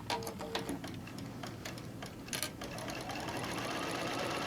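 Electric sewing machine stitching a seam. A few light clicks come first, then about two and a half seconds in the motor starts, rises in pitch as it speeds up, and runs steadily.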